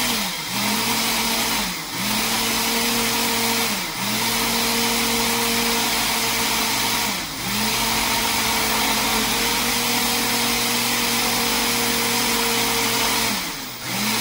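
Kitchen blender motor running under load while blending a thick pesto, a steady hum that about five times drops in pitch and loudness and then speeds back up.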